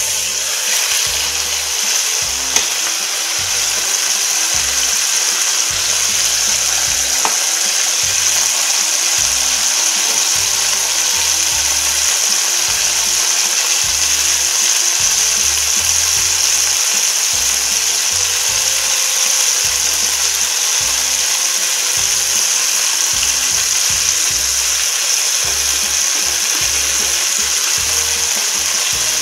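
Veal tafelspitz searing in hot oil in a frying pan: a steady sizzling hiss, with one sharp click about two and a half seconds in.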